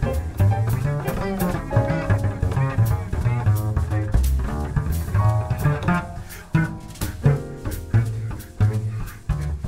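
Background music with a bass line and drums.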